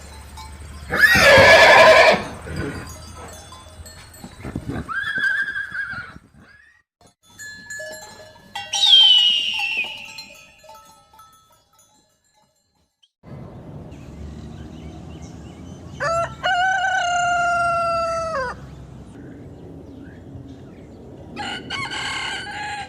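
A run of separate animal calls, then after a short pause a rooster crowing: one long crow about two-thirds of the way through and another beginning near the end.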